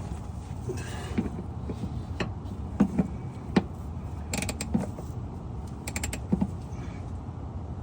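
Hand ratchet clicking and metal tools clinking: scattered sharp clicks and knocks, with a few quick runs of clicks around the middle.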